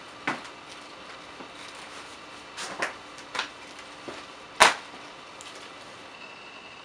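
A few scattered light knocks and clicks of something being handled, the loudest a sharp knock about four and a half seconds in. A faint steady high tone comes in near the end.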